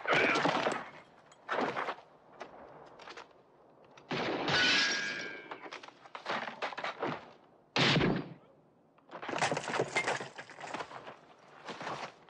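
Gunfire and impacts: a run of sharp, irregular shots and cracks, some clustered, others a few seconds apart.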